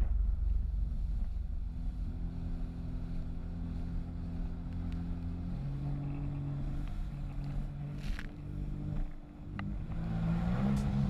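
Sea-Doo RXP-X 260 jet ski running at speed on open water, a steady engine drone over rushing water and spray.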